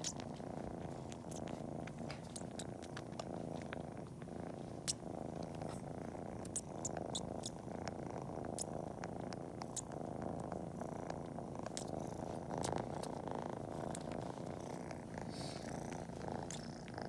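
Kitten purring steadily while suckling on its own toes as if nursing, with loud suckling clicks scattered through the purr.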